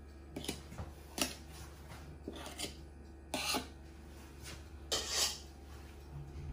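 Metal offset spatula scraping and smoothing soft mousse in a metal cake tin: several short scrapes, the loudest about five seconds in.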